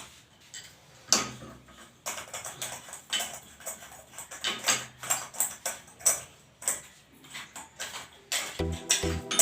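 Irregular clicks and light knocks of metal fittings and hand tools being handled during a bath mixer installation. Background music with a steady beat starts near the end.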